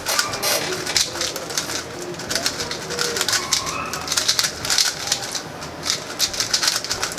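Two Qiyi Tornado 3x3 speedcubes being turned fast at the same time in a race solve: a dense, continuous run of quick plastic clicks and clacks from the layers snapping round.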